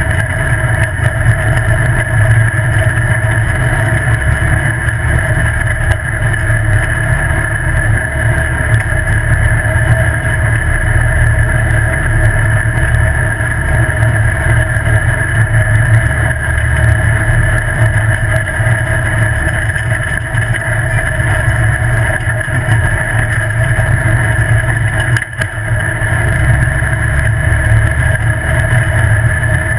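Off-road buggy running steadily at speed along a dirt road: a loud, steady engine drone with road noise. There is one brief drop in level about twenty-five seconds in.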